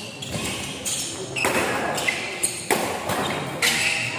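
Badminton rally: a series of sharp racket-on-shuttlecock smacks, with the noise of spectators' voices around them.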